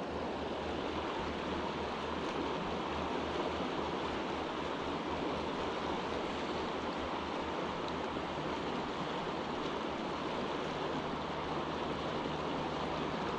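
Shallow river flowing over a cobble riffle: a steady rush of moving water.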